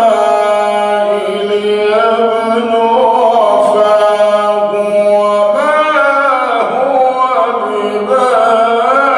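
Solo male Quran recitation in the melodic tajweed style: one long phrase of held, drawn-out notes with ornamental turns of pitch, unaccompanied.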